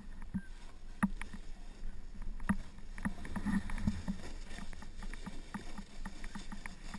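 Skis sliding and scraping over crusty, wind-packed snow, heard on a pole-held action camera as a low rumble broken by many irregular sharp clicks and knocks.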